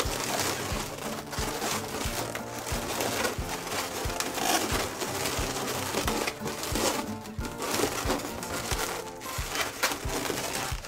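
Latex 260 modelling balloons squeaking and rubbing against each other as they are twisted and tied together, with background music carrying a steady beat.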